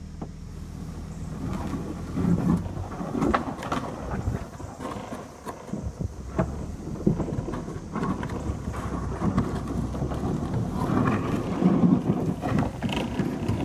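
Chevrolet Malibu rolling slowly along a dirt and grass track, dragging a small boat on a rope: an uneven rumble with scattered crackles and clicks from the ground, and wind buffeting the phone held out of the car window.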